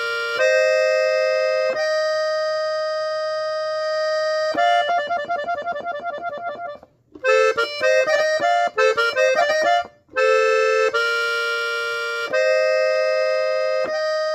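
Three-row diatonic button accordion in F playing a norteño phrase. Long held notes give way, about four and a half seconds in, to a fast repeated-note ornament, then a quick run of short notes broken by two brief gaps, and it settles back into held chords.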